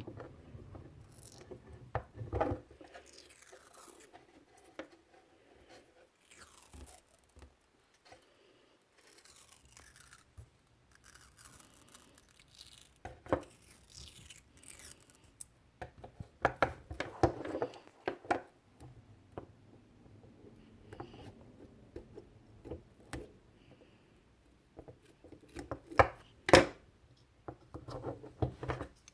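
Gaffer tape being pulled off the roll and wrapped around a model rifle's stock: irregular rasping and peeling sounds, with scattered sharp clicks and knocks as the parts and scissors are handled.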